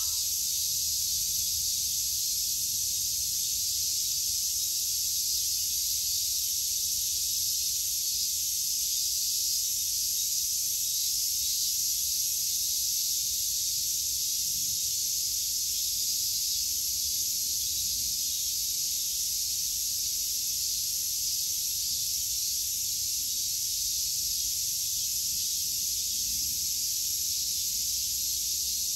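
A dense chorus of summer insects: a steady, unbroken high-pitched shrill hiss that does not pause or change.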